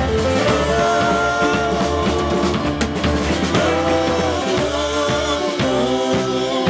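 Rock band playing a song: a man singing lead in long held notes over drums and keyboard.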